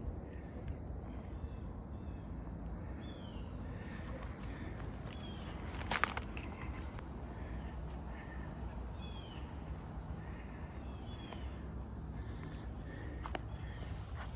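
Steady high-pitched insect trill, with short chirping calls repeating every second or two over a low rumble; a single sharp click about six seconds in.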